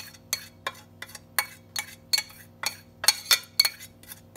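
Metal spoon clinking and scraping against a small saucepan in quick, even taps, about three a second, as the last of the hot caramel is scraped out into a metal bundt pan.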